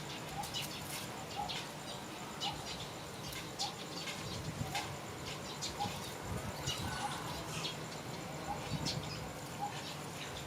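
Many short, high-pitched animal chirps in quick, irregular succession, over a soft low peep repeating about once a second.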